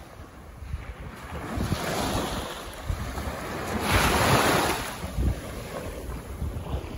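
Small sea waves breaking gently and washing up a sandy shore, the wash swelling twice, loudest about four seconds in. Wind rumbles on the microphone underneath.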